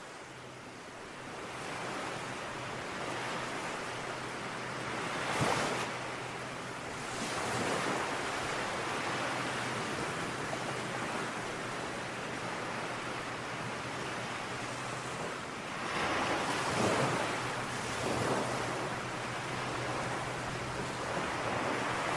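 Ocean surf washing onto a shore: a continuous rushing hiss with several louder waves breaking and receding.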